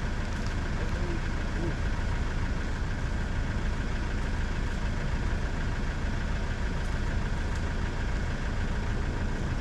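Vehicle engine idling steadily, with no revving or change.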